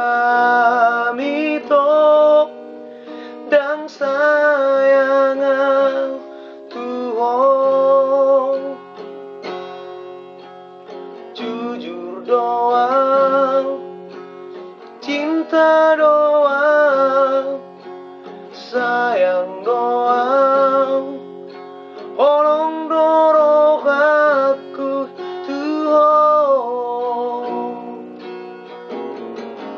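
Acoustic guitar strummed and picked as accompaniment to a slow song, with a voice singing phrases of a few seconds each and short breaks between them.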